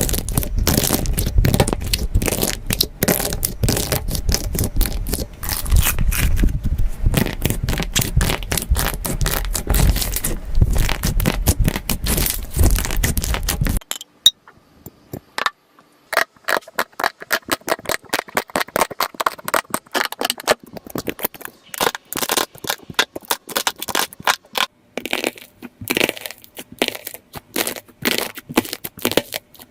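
Slime being squeezed and poked by hand, giving dense rapid crackles and clicks. About halfway through the sound changes abruptly to sparser, quieter pops and clicks.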